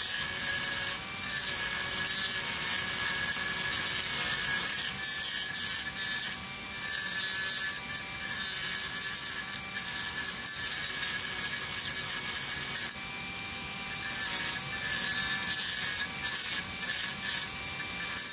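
Handheld rotary motor tool with a cutoff disc, running at its lowest speed and grinding into an HO locomotive's truck side frame: a steady whine with rasping cuts that break off briefly again and again as the disc is lifted from the part.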